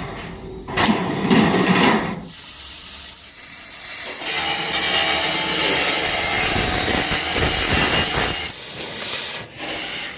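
Workshop tool noise: a few short rubbing bursts, then a steady hiss lasting about four seconds from roughly four seconds in, then another short burst near the end.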